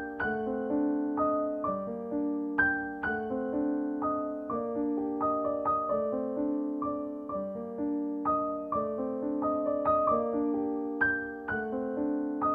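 Background piano music: a gentle melody of struck notes that ring and fade, in a steady flowing rhythm.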